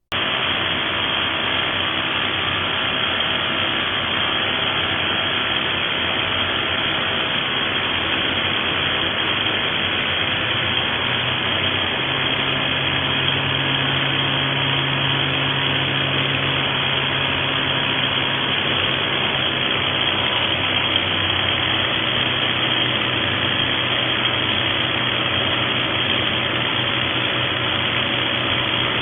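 XCORT XZC02-26/XZC03-26 electric rotary hammer starting suddenly and running continuously: a dense, steady mechanical noise with a low hum that shifts slightly in pitch about twelve seconds in and again a little past twenty seconds.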